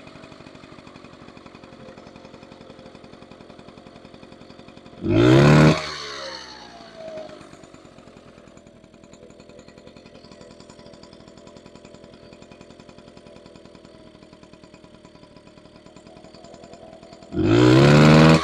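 A 1977 Honda Express NC50 moped's small two-stroke engine idling steadily, revved sharply twice, about five seconds in and again near the end, each rev rising and falling back to idle. The engine is now running well after a new coil and condenser were fitted.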